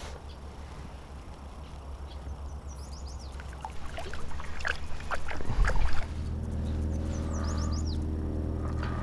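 Water splashing as a largemouth bass is let go from the hand into the pond, a cluster of sharp splashes loudest just before six seconds in. A steady low hum runs underneath, and after the splash a steady droning tone carries on.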